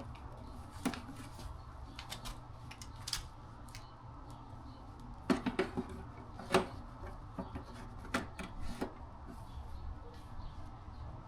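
Hand tools clicking and knocking against each other and the case as they are packed into a small motorcycle toolbox, with irregular sharp clicks and a bunch of louder knocks a little past the middle, over a low steady hum.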